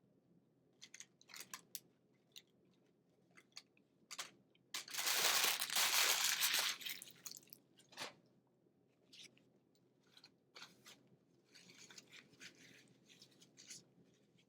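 A person chewing food close to the microphone, with scattered crunches and a loud, dense crunching stretch of about two seconds about five seconds in, then softer chewing near the end.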